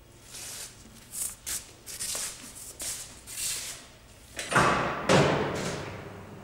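A run of short hissing, rustling noises, then two loud knocks about half a second apart, each dying away slowly.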